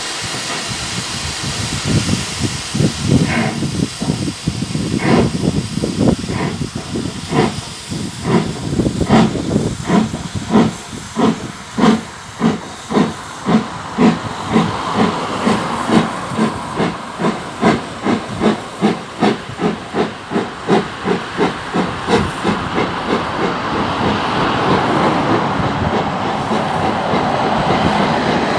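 Steam tank locomotive pulling away with a train of coaches: a steady hiss of steam, then exhaust chuffs that speed up from about one a second to about three a second as the engine gathers speed. The chuffs fade into a steady rolling noise of the coaches passing near the end.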